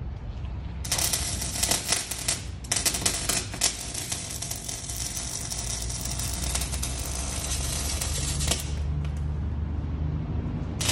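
Arc welding on a car's exhaust pipe: a dense crackling sizzle that starts about a second in, breaks off briefly, then runs on until near the end. A steady low hum sits under it throughout.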